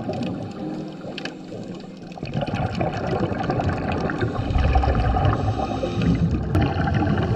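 Muffled underwater noise picked up by an action camera in its waterproof housing: low water rumble with the gurgling of a diver's exhaled breath bubbles and small scattered clicks.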